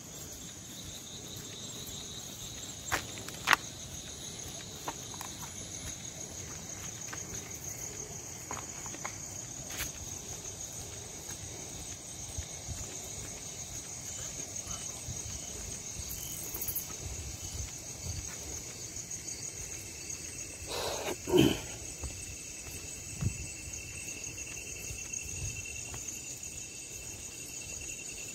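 Night chorus of crickets, a steady high-pitched trilling, with scattered footsteps and sharp clicks on a jungle path and one louder short knock about three-quarters through.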